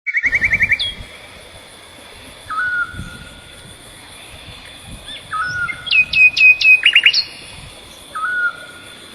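Wild birds calling: a fast trill at the start, then scattered short whistled notes and a quick run of loud chirps about six seconds in.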